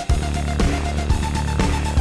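Electronic background music with a steady beat of about two beats a second over a deep bass line.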